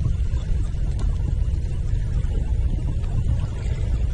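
Steady low rumble of wind buffeting a GoPro Hero 5's microphone, flickering constantly with no distinct events.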